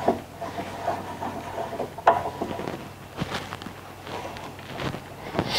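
Metal vise T-handle being spun and handled on a cutoff saw's vise screw: light rattling with a few sharp metal clicks, about two seconds in, a second later, and near the end.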